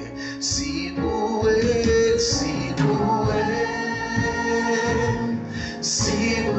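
Live gospel worship music: voices singing long held notes over soft band accompaniment.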